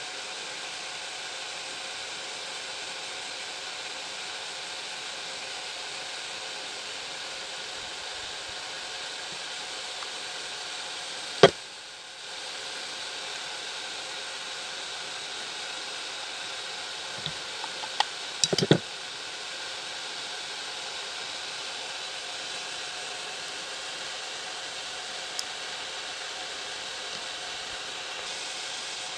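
Steady background hiss, with one sharp knock about a third of the way through and a short run of clicks and taps about two-thirds in, as tools and parts are handled on a workbench during soldering.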